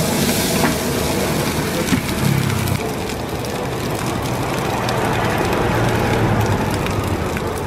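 Steady roar of the wok burner with fried rice sizzling in a large wok, with a few clicks of the metal spatula against the wok in the first two seconds.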